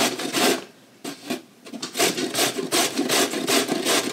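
Zucchini being shredded on a stainless-steel box grater: repeated rasping strokes, about three a second, with a pause of about a second near the start.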